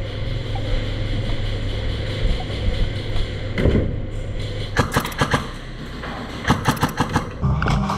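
Airsoft electric rifle firing two short strings of rapid shots, about a second and a half apart, over a steady low rumble of wind or movement on the microphone.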